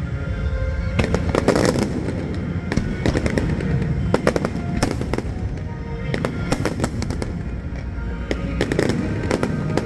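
Aerial fireworks going off: repeated sharp bangs and crackles in quick clusters, over a low rumble, with music playing underneath.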